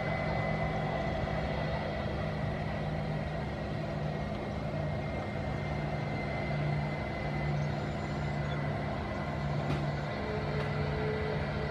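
Airbus A319 jet engines at taxi power as the airliner rolls along the runway: a steady low rumble with a faint high whine held throughout.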